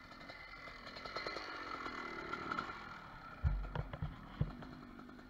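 Dirt bike engine running, with a cluster of dull low thumps a little past halfway through.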